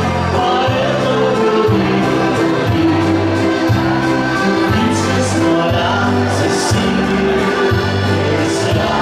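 Live beer-hall band music with accordion, a steady bass line changing notes about once a second, and many voices singing along.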